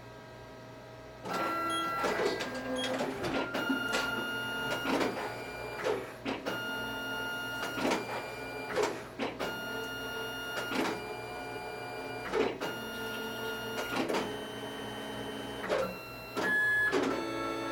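Zebra ZXP Series 8 retransfer card printer printing a double-sided ID card. After a moment's quiet it starts about a second in: motors whirring with steady whining tones, broken by repeated clicks and clunks as the card and ribbons are moved through the printer.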